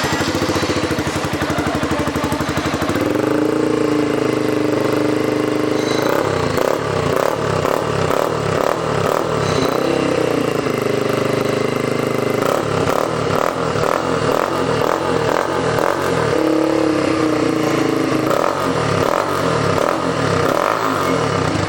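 Single-cylinder Yamaha Fazer 150 engine running through a Roncar Aluminium sport exhaust (carbon-steel pipe with an aluminium tip), first at a low steady speed and then revved up and held about three seconds in. After that the throttle is blipped over and over, the note rising and falling with each blip, with another held rev in the second half: a demonstration of the exhaust's note.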